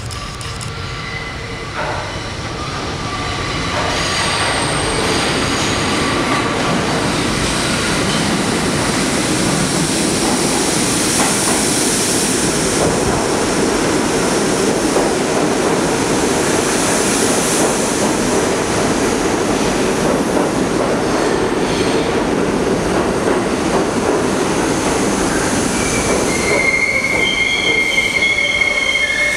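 New York City Subway R32 train, a 1960s Budd-built stainless-steel car set, coming into an underground station. It grows louder over the first few seconds, then a steady rumble and clatter of wheels on rail with squealing as it runs along the platform. Near the end, high steady squealing tones come in as it slows.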